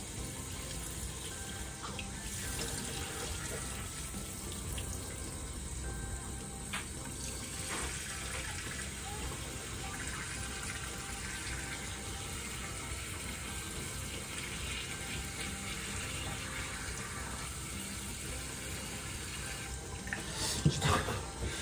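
Tap water running steadily through a hose into a fish and spilling into a stainless steel sink, as it is flushed through the fish's blood vessels for Tsumoto-style bleeding. A few louder knocks and splashes near the end.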